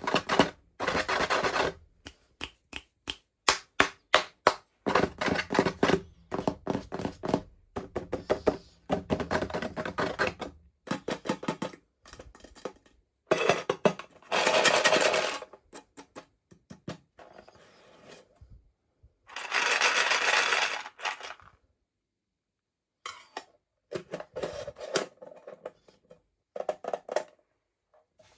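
Toy packaging being handled and opened by hand: quick clicks and taps with bursts of rustling, in short separate takes. Two longer rustles come about halfway and two-thirds through.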